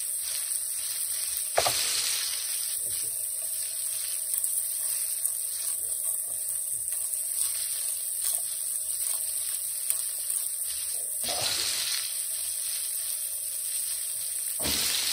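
Flour-dredged Black Sea gobies frying in oil in a pan: a steady sizzle with scattered crackles and one sharper pop about a second and a half in.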